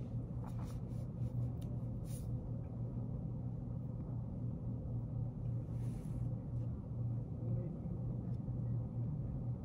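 Steady low hum of office room tone. A few brief, faint pen-on-paper scratches come near the start and again around six seconds in.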